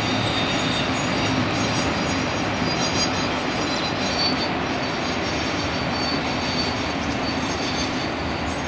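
Passenger train running on the rails: a steady rumble of wheels on track, with a thin, high, wavering wheel squeal over it.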